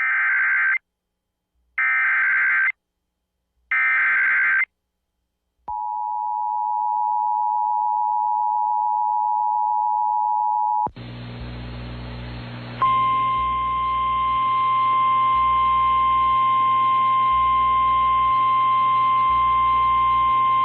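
Emergency Alert System activation: three short screeching SAME digital header bursts about a second apart, then the two-tone EAS attention signal for about five seconds. A hissy radio relay with hum follows, and a steady single-tone NOAA Weather Radio warning alarm begins about two seconds later and holds for about nine seconds.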